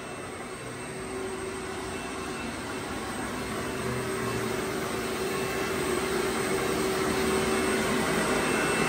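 Steady rushing mechanical noise with a constant hum, slowly growing louder.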